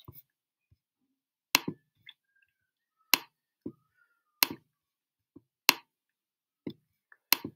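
Computer mouse clicks: five sharp single clicks about a second and a half apart, with a few fainter ticks between.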